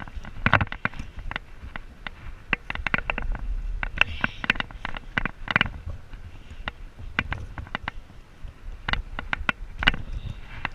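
Irregular sharp clicks and taps over a low rumble: rubbing and handling noise on a chest-mounted camera.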